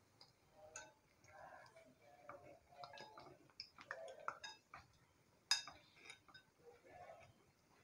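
Faint clinks and taps of a steel spoon against a wire spider strainer as fried fritters are lifted out of the oil, with one sharper click about five and a half seconds in.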